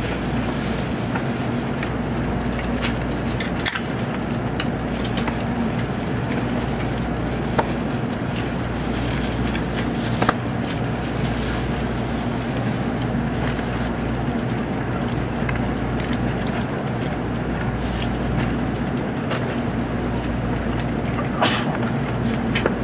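Steady hum inside a Shinkansen passenger car standing at a station, with a low steady tone under the noise and a few faint clicks.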